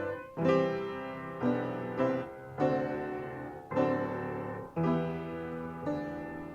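Piano playing slow chords, a new chord struck about once a second and left to ring and fade.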